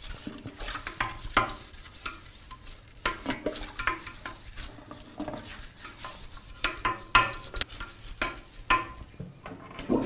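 Toilet brush scrubbing the inside of a ceramic toilet bowl: irregular scraping and swishing strokes through the water in the bowl.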